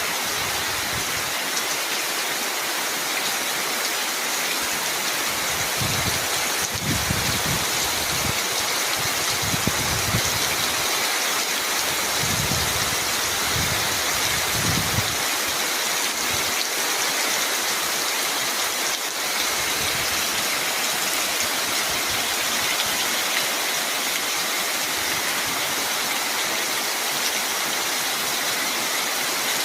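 Steady rain falling, an even hiss that does not let up, with a few brief low rumbles between about 6 and 15 seconds in.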